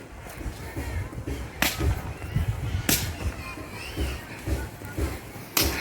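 Three sharp cracks, about two, three and five and a half seconds in, over an uneven low rumble.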